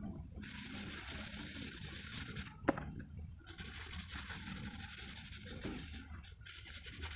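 Graphite pencil scratching on paper in long shading strokes, a rasping hiss that breaks off briefly between strokes. A single sharp click about a third of the way through.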